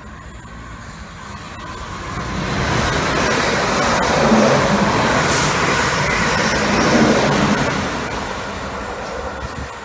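Siemens Desiro electric multiple unit passing through the station without stopping. The rumble and rail noise swell from about two seconds in and stay loud for several seconds as the coaches go by, with a short high hiss in the middle, then fade as it draws away.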